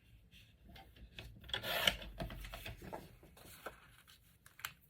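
Paper being trimmed: a short rasping cut about a second and a half in, with small clicks and paper rustles around it.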